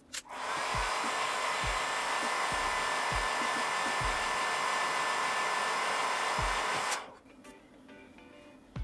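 Black & Decker heat gun blowing hot air, a steady rushing hiss with a steady whine in it, switched on just after the start and cut off about seven seconds in. It is heating the cracked front glass of a Samsung Galaxy S4 so the glass can be lifted off without breaking.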